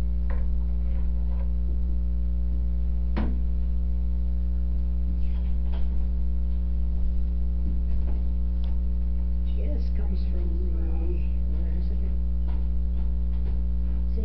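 Steady, loud electrical mains hum on the recording, with a single sharp knock about three seconds in and a few faint clicks. Faint voices come in around two-thirds of the way through.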